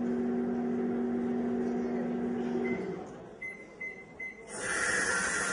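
Microwave oven sound effect: a steady hum that stops, followed by three short high beeps marking the end of the cycle. About a second later a loud, steady hiss starts.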